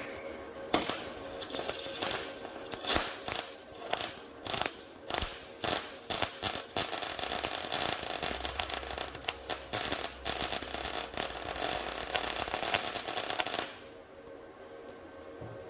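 Welder tack-welding a replacement spare wheel well panel into a car's boot floor. First comes a series of short welds about half a second apart, then a longer continuous weld of about six seconds that stops sharply near the end.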